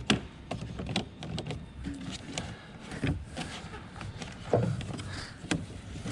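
Irregular clicks and knocks of parts and tools being handled as pieces are taken off in the car's engine bay.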